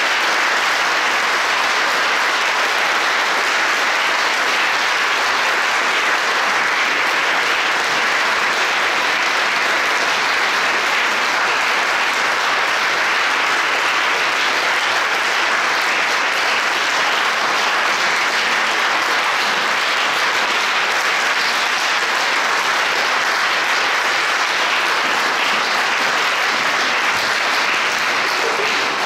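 Concert audience applauding, a steady, loud wash of clapping.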